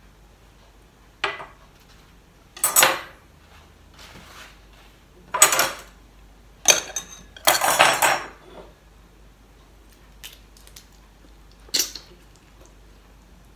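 Steamed prawns being peeled by hand at the table: about six short bursts of crackling and clatter, the loudest a few seconds in.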